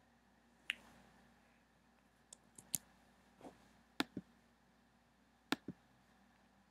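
About nine sharp computer clicks, irregularly spaced with quiet gaps between them, a few coming in quick pairs like a button press and release.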